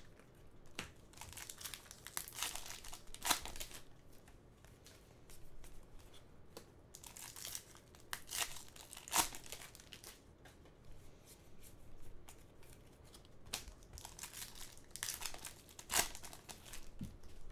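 Plastic trading-card pack wrappers crinkling and tearing as packs are ripped open by hand, in irregular bursts with a few sharp snaps.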